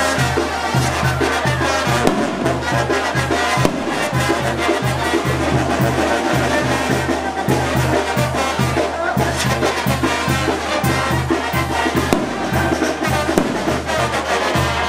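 Mexican banda music: brass band with trumpets and trombones over a steady, pulsing bass beat.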